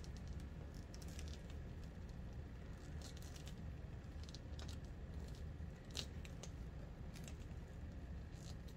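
Faint rustling and small crinkling ticks of vinyl being rolled and pinched by hand around plastic tubing, over a steady low hum; the clearest tick comes about six seconds in.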